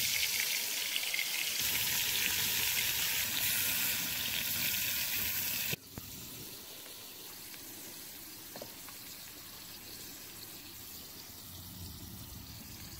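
Morel mushrooms sizzling in hot fat in a cast-iron skillet. The sizzle is loud for about six seconds, then drops suddenly to a much fainter sizzle.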